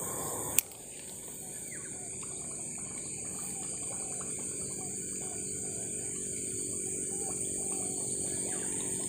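Steady insect chorus with a high, even buzz, broken by one sharp click about half a second in, with faint scattered ticks over it.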